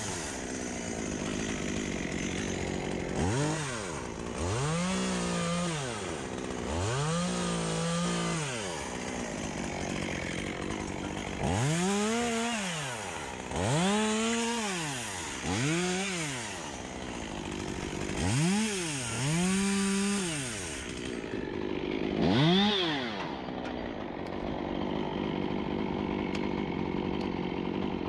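Two-stroke chainsaw revved in about nine short full-throttle bursts, its pitch climbing, holding for a moment, then dropping back to a low idle between bursts. It settles to a steady idle near the end.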